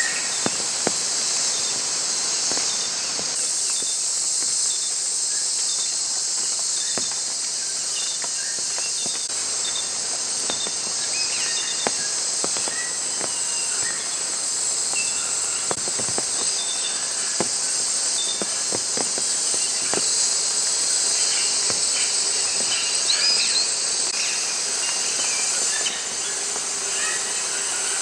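Dense, steady high-pitched chorus of tropical cloud-forest insects, with scattered short chirps and a few faint clicks over it.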